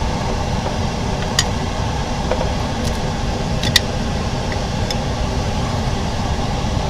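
Steady low mechanical hum, with a few faint sharp clicks.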